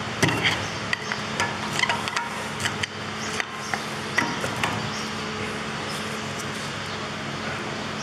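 A long screwdriver clicking and knocking against the front brake caliper and pads of a Vauxhall/Opel Insignia as it levers the pads back, a run of sharp metal taps over the first four to five seconds. A steady low hum runs underneath.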